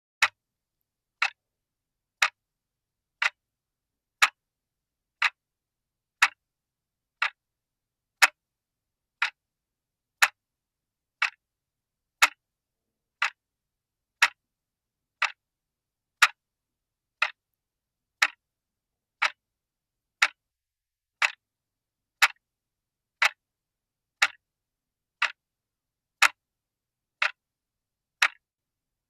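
Clock ticking steadily at one tick per second, each tick a short sharp click with silence between.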